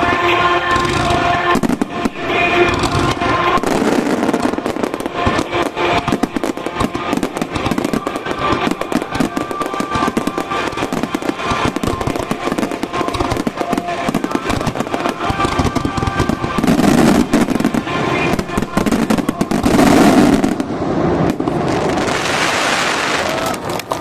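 A rapid, continuous barrage of starmine firework shells bursting and crackling, with heavier booms about 17 and 20 seconds in, over music played for the show.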